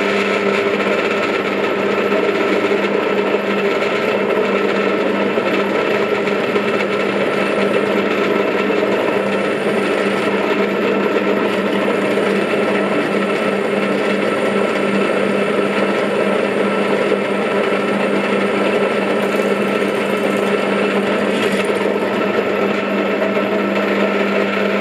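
Parkside PTBM 500 ES bench drill press running at a steady speed as its twist bit drills a test hole through a metal flat bar held in a vise: a constant motor hum and whine that keeps an even pitch.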